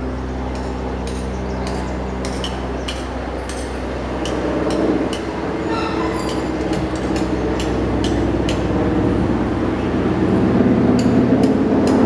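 Woodpecker pecking at a palm trunk: irregular sharp taps, about one or two a second, over a steady low rumble that grows louder in the second half.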